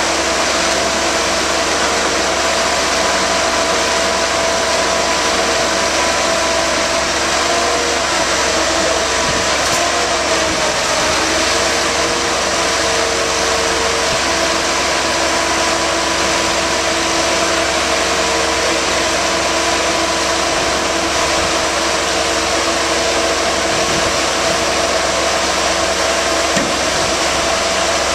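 Marine travel lift running steadily as it hoists a boat out of the water: a continuous engine and hydraulic drone with a few held tones that waver briefly about a third of the way through.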